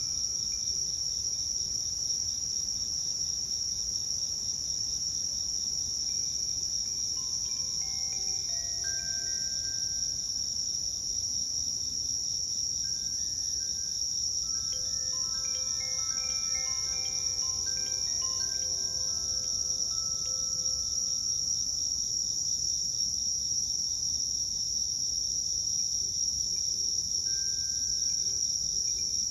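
Koshi Terra wind chime ringing now and then, its clear notes scattered at first and thickest in a run through the middle. Under it runs a steady, louder chorus of insects chirping.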